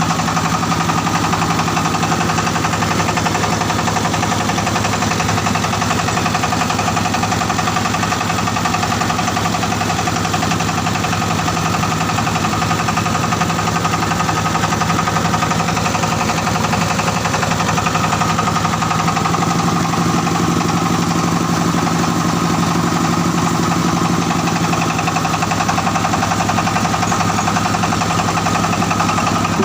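Diesel engine of a mobile rice mill running steadily at an even speed.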